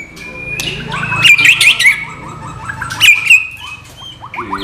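White-rumped shama (murai batu) singing: clear whistled notes, quick up-and-down sweeps and fast rattling trills, with the loudest phrases about a second in and again about three seconds in.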